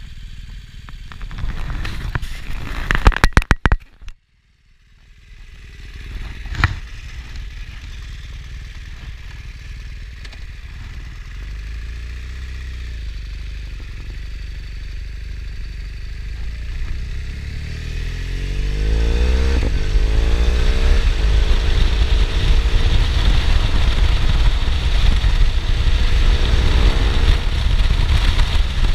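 BMW R1200R boxer-twin engine through an Akrapovic titanium exhaust. A loud, rattly burst about three seconds in stops suddenly, then the engine runs low and steady. About nineteen seconds in it accelerates with rising pitch and keeps running louder, with wind rushing past.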